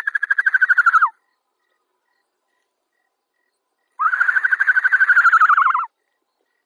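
An animal calling twice: a high, fast-pulsing call about a second long, then after a pause a longer one of about two seconds, each dropping in pitch at the end.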